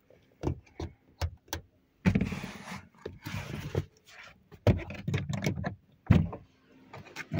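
Irregular clicks, knocks and rustling bursts from handling and moving about inside a car's cabin: several quick clicks in the first second and a half, rustling bursts after that, and a sharp knock about six seconds in.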